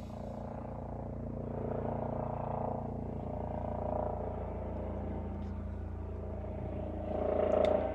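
Steady low mechanical hum, with a droning swell that rises about two seconds in and again near the end.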